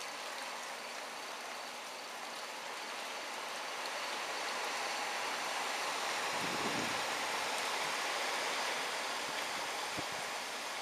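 Hurricane wind rushing through thrashing trees, with a steady hiss of rain. The gust builds midway, with a low rumble at its peak, then eases, and there is a brief knock near the end.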